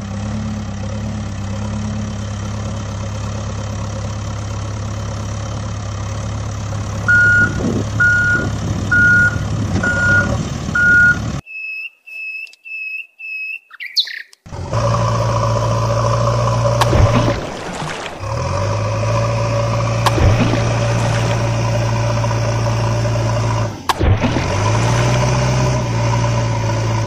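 Engine sound of a backhoe loader running steadily. A reversing alarm beeps five times, about once a second. The engine cuts out for four higher beeps, then runs again with a few short knocks.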